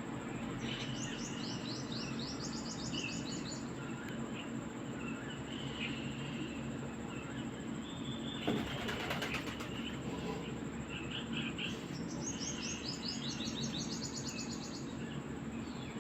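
Small birds chirping, with two quick runs of high, rapid chirps near the start and again near the end. There are scattered lower calls in between and a short flurry of wing flaps about halfway through.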